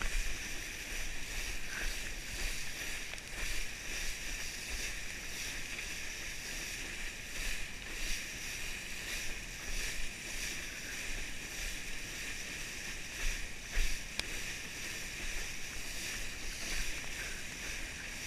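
Steady rushing hiss of water and spray as a knee board is towed over a motorboat's wake, with the wind of the run on the microphone and low buffeting thumps now and then.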